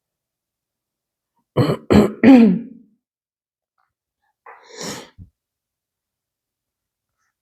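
A woman coughing three times in quick succession about two seconds in, then once more, softer, about five seconds in: a cough that has come on, which she says has kept her coughing all morning.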